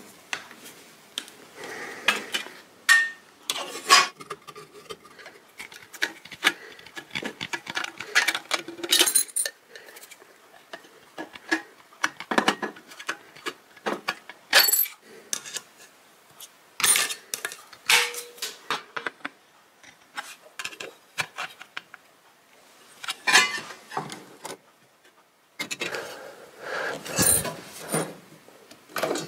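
Sheet metal being worked by hand: a thin sheet bent, cut with tin snips and clamped in a bench vise. It gives a long run of irregular metallic clinks, snips and knocks.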